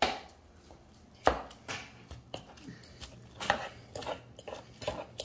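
Two pairs of metal forks tapping and scraping on a plastic cutting board as boiled chicken breast is shredded: irregular sharp clicks and knocks, with the loudest at the start and about a second, three and a half seconds and five seconds in.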